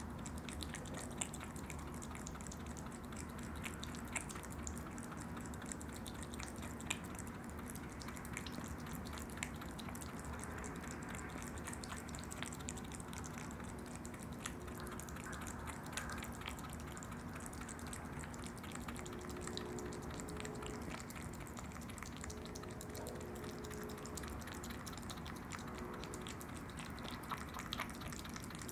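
Opossums eating yogurt: irregular sharp mouth clicks and smacks over a steady background hiss.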